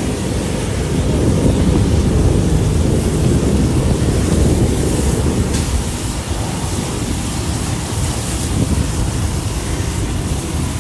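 Loud, steady low rumble of wind buffeting the microphone, mixed with the roar of burning structures, easing a little about halfway through.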